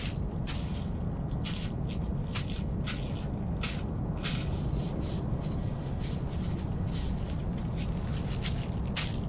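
Irregular crisp crackles and rustles, several a second, over a steady low rumble.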